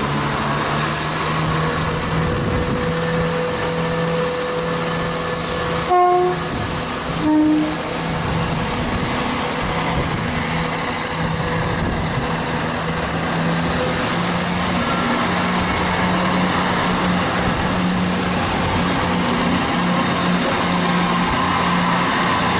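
Chiltern Railways Class 168 diesel multiple unit running through the station with a steady engine drone. About six and seven and a half seconds in it gives two short horn blasts, the second a little lower in pitch than the first.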